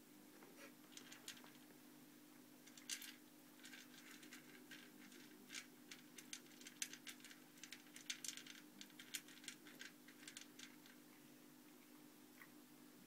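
Cat crunching dry kibble from a plastic bowl: irregular crisp crunches and clicks, thickest in the middle, over a faint steady low hum.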